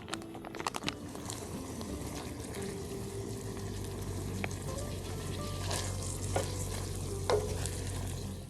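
Food sizzling as it fries in a pan, a steady frying hiss broken by a few light clicks of a utensil stirring it.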